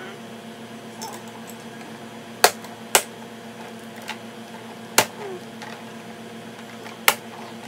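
Hard plastic toy parts snapping into the toy tray of a baby activity chair: four sharp clicks, two close together about two and a half seconds in, one around the five-second mark and one near the end.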